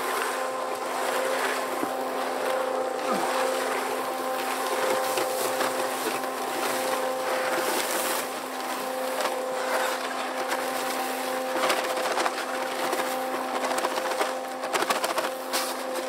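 Kushlan concrete mixer running with a steady motor hum, under the gritty churning and sloshing of wet concrete tumbling in the drum. Scattered sharp knocks come near the end.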